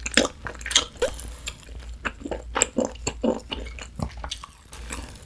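Close-miked chewing of grilled beef short rib (udae galbi), heard as a run of short, irregular mouth clicks and smacks.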